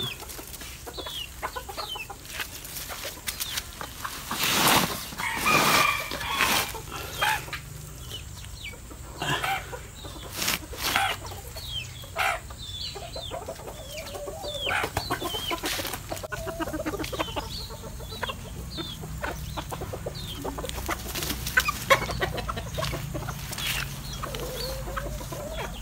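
Chickens clucking on and off, with a few louder sharp sounds standing out, the loudest about a quarter of the way in and again near the end.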